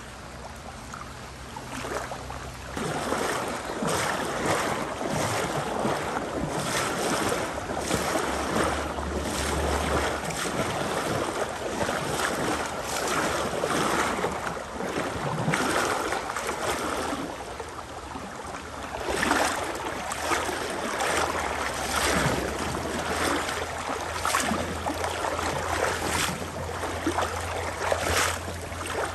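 Wading through a river: water sloshing and splashing around the legs with each stride, about one stroke a second, starting a couple of seconds in.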